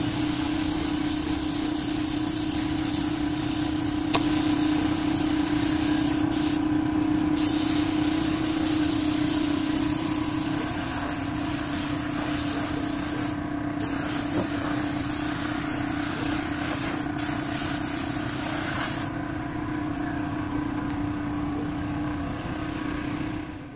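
Gravity-feed air spray gun hissing as paint is sprayed onto motorcycle body panels, in long passes with several brief breaks where the trigger is let off, and a softer stretch near the end. A steady low hum runs underneath.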